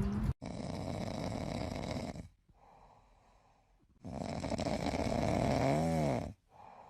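A sleeping pet snoring: two long, noisy breaths of about two seconds each with a pause between them. The second ends in a short snort that rises and falls in pitch.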